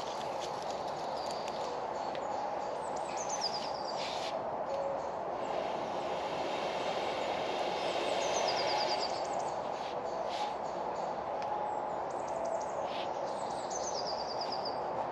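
Breath blown through a metal fire-bellows tube into glowing campfire coals to revive the fire, a steady rushing that is loudest around the middle. A small songbird sings a short descending trill three times.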